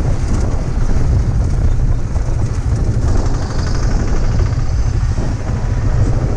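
A Yamaha sport motorcycle being ridden, its engine running under a steady, heavy low rumble of wind on the microphone.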